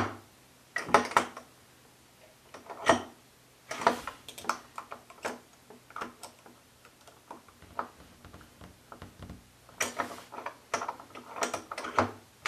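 Small screwdriver tightening down a chrome twist-top bathtub drain stopper: irregular clusters of light metal clicks and scrapes, with quieter stretches between them.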